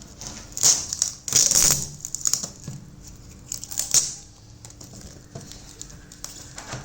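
Plastic protective covers being pulled off a new microwave oven, crinkling and tearing in several loud bursts over the first four seconds, then lighter rustles and small clicks.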